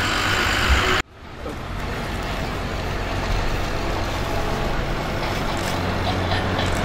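Steady outdoor rumble of road traffic with a constant low hum underneath. The sound drops out abruptly about a second in, then fades back up and holds steady.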